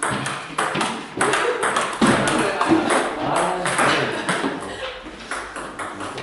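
Table tennis balls being hit back and forth: a quick, irregular run of sharp clicks from ball on rubber paddle and ball bouncing on the table, with voices in the hall.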